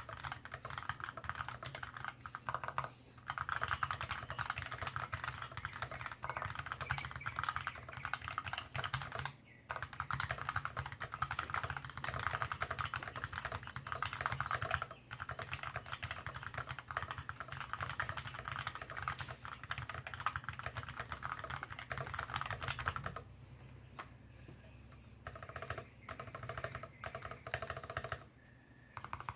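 Mechanical keyboard with Kailh BOX Dark Yellow linear switches, GMK keycaps, a steel plate and a wooden case, typed on fast and continuously. The keystrokes thin out to slower, separate presses with short pauses about three-quarters of the way through.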